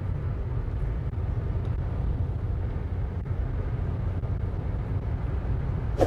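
Steady road noise of a car driving at speed on a concrete highway: a low, even rumble of tyres and engine, heard from inside the cabin.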